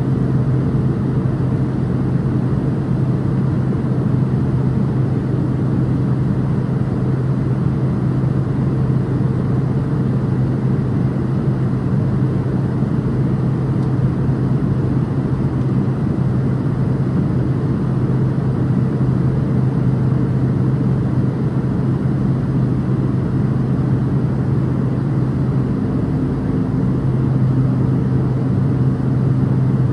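Cabin noise of a Swearingen Metroliner in flight: its twin Garrett TPE331 turboprops make a steady drone with a low propeller hum. About 26 seconds in, the hum shifts briefly and a second, higher tone joins it.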